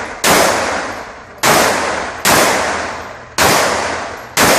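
Pistol fired five times at an unhurried pace, roughly one shot a second, each shot followed by a long fading echo.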